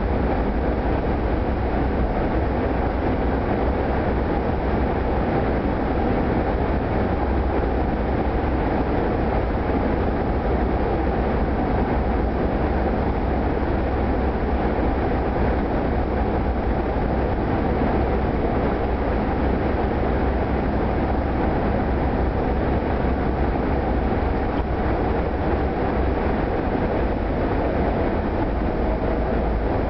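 Steady low rumble of road and engine noise inside the cabin of a 1977 Buick LeSabre cruising along, unchanging throughout.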